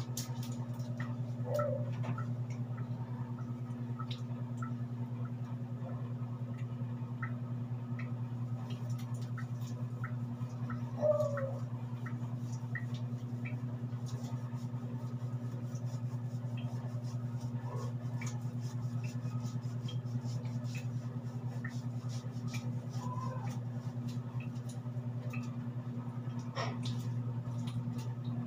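A steady low hum throughout, with faint scattered clicks and two brief squeaks, a soft one about a second and a half in and a louder one about eleven seconds in.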